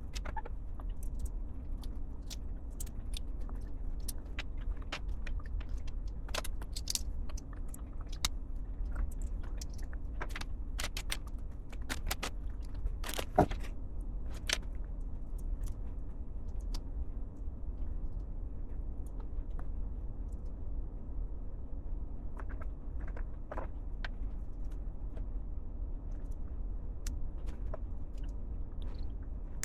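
Plastic LEGO pieces clicking and rattling as they are handled and pressed together, over a steady low hum. The clicks come thick in the first half, thin out, then come in a few groups later on.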